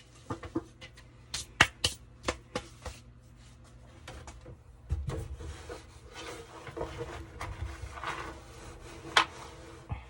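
Hands digging lint and grit out of a clothes dryer's vent duct: a run of clicks and knocks, then scraping and rubbing, with one sharp click near the end.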